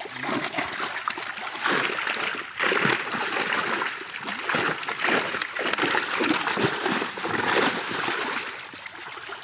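Many fish thrashing in the water of a net drawn tight: continuous churning splashing with irregular louder bursts.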